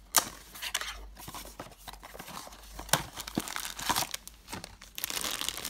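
A small cardboard blind box being opened by hand: the flap is pried up with sharp clicks and scraping. Near the end the shiny black foil bag inside crinkles as it is pulled out.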